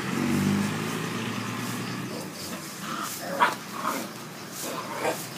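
Puppy giving several short, high yips in the second half, over a low rumble near the start.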